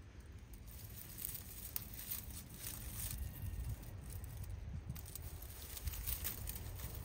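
Rustling and crackling of dry vine stems and leaves: many small irregular clicks, over a low rumble on the microphone.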